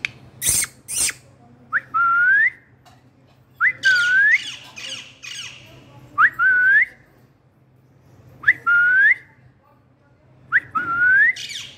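Pet parrot calling over and over: two harsh screeches at the start, then five times, about every two seconds, a short whistle that dips and rises, each followed by a burst of raspy squawking.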